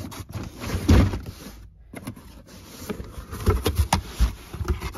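Cardboard shoebox being opened and handled: the lid scraping and rubbing on the box, with several sharp knocks, the loudest about a second in.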